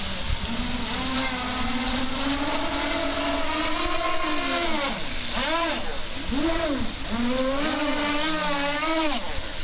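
Twin brushless outrunner motors of an RC race boat whining at full throttle. The whine holds high and steady at first, then dips and rises several times as the throttle is worked through turns. It cuts off shortly before the end.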